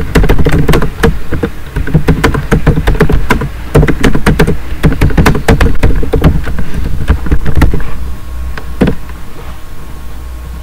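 Typing on a computer keyboard: a quick, uneven run of keystrokes that stops about eight seconds in, followed by a single click near the end, over a low steady hum.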